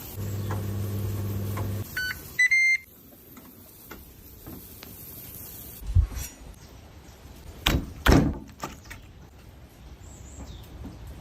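Microwave oven running with a steady hum that stops just under two seconds in, followed by a couple of short beeps. A low thump and two sharp knocks follow a few seconds later.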